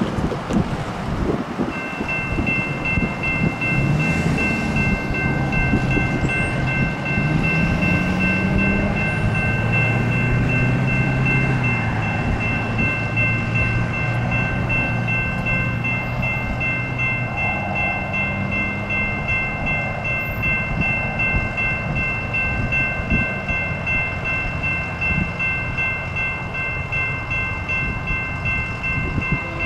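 A railroad crossing signal's bell rings steadily from about two seconds in, over the low, continuous running of a loaded coal train's approaching diesel locomotives, whose engine tone rises in pitch several seconds in.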